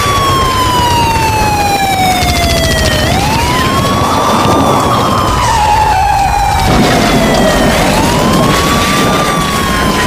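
Emergency alert alarm siren wailing. Its pitch sweeps up over about a second and a half, then glides slowly down for about three seconds, repeating in long cycles over a steady low rumble. A second, wavering tone sounds along with it in the middle.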